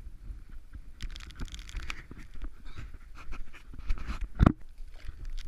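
Heavy panting of a runner carrying the camera while running, with wind buffeting the microphone as a steady low rumble. One loud knock comes about four and a half seconds in.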